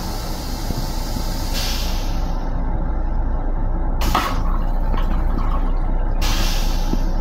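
Steady low rumble of an M7 electric railcar running, heard inside its restroom, with three short hisses about a second and a half, four and six seconds in.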